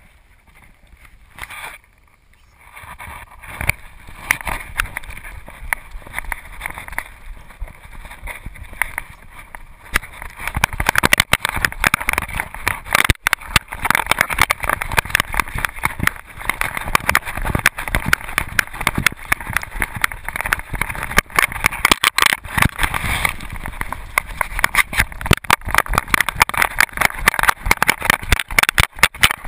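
A loosely mounted GoPro rattling and knocking on a moving whippet's back, with fast, irregular knocks. It is quiet for the first few seconds, then grows much louder about a third of the way in as the dog gets going.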